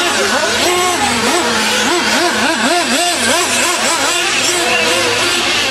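Several nitro RC monster trucks' small glow-fuel engines racing, revving up and down over the jumps. Their overlapping pitches rise and fall about twice a second.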